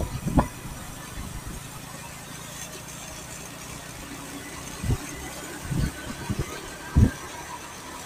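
Motorcycle engine running steadily while riding along at an easy road speed, with a few short low thumps about five to seven seconds in, the loudest near the end.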